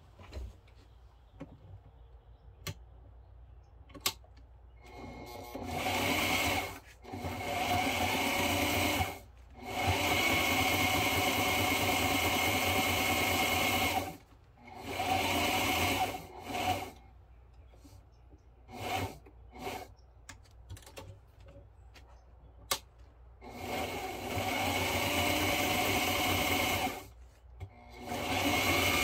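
Sewing machine stitching through textured vinyl in a series of runs that start and stop, each one to four seconds long. Light clicks from handling come in the first few seconds and between the runs.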